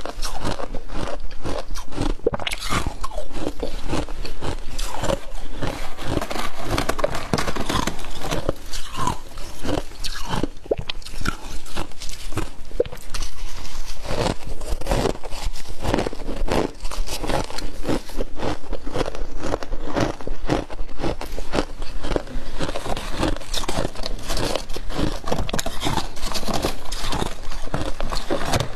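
Person biting and crunching deep-freezer frost: a continuous, dense run of crisp crunches with no pause.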